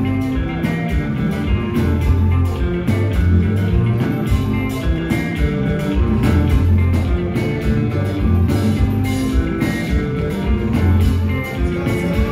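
Haitian konpa band playing live on a hall's sound system: electric guitar over heavy bass and a steady drum beat.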